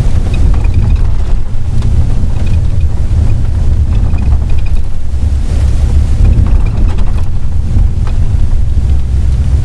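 Steady, loud low rumble of a vehicle driving at highway speed: engine and road noise with wind buffeting the microphone.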